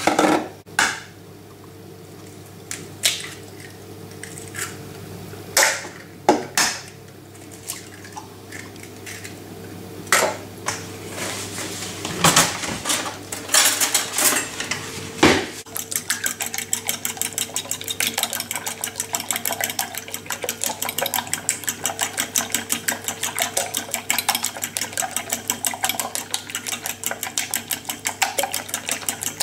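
Fork beating raw eggs in a glass bowl: a quick, even clinking of about four strokes a second that starts about halfway through. Before that come scattered knocks and clatters of kitchenware on the countertop.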